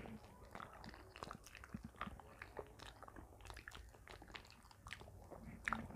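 Faint chewing and mouth sounds of people eating bananas, with many small irregular clicks and smacks.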